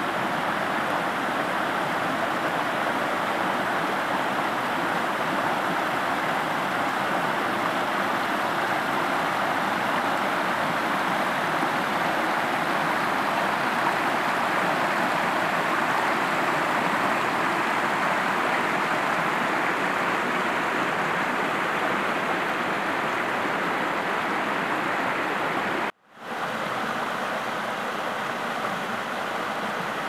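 Creek water cascading over rock ledges in small waterfalls: a steady rushing noise. It cuts out for an instant near the end, then resumes a little softer.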